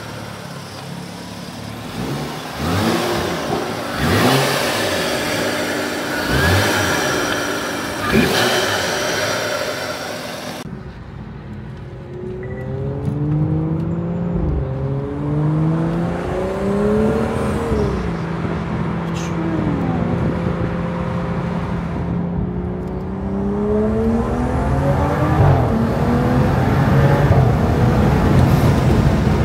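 BMW 435i's N55 turbocharged straight-six with an aftermarket DCE Parts intake: about four sharp free revs with the hood open. Then, heard from inside the cabin, it pulls through the gears, the pitch rising and dropping back at each upshift and getting louder toward the end.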